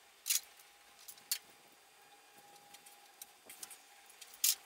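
Faint, sparse metallic clicks and a few short scrapes from a brake-line flaring tool being worked on the end of a brake line.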